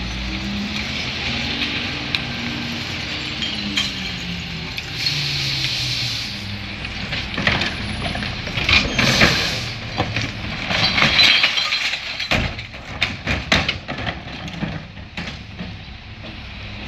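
Mack LE rear-loader garbage truck's diesel engine running, with a short hiss of air about five seconds in. From about seven seconds in, recyclables with glass in them clatter and break in a long run of sharp crashes, loudest in the middle, as they go into the McNeilus rear hopper.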